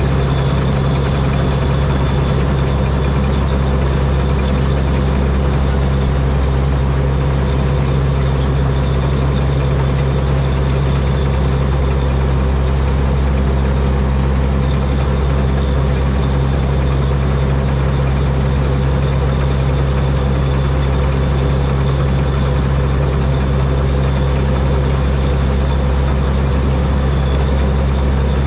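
Rice combine harvester with a 225-horsepower turbocharged Mitsubishi engine, running at a steady speed with a deep, even drone and a faint high whine.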